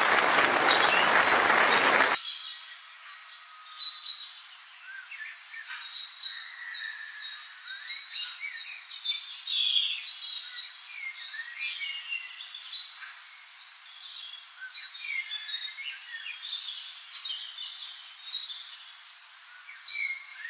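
Audience applause that cuts off abruptly about two seconds in, followed by birds chirping and trilling in short scattered phrases.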